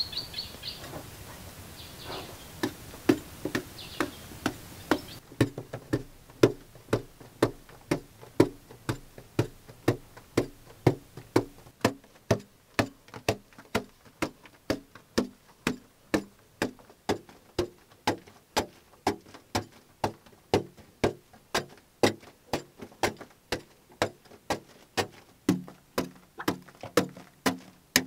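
Pick striking packed earth in a tunnel wall, steady blows about two a second. Birds chirp briefly at the start.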